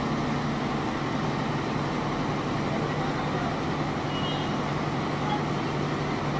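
Richpeace automatic single-ply fabric cutting machine running while its cutting head travels across the table: a steady, even machine noise with a low hum.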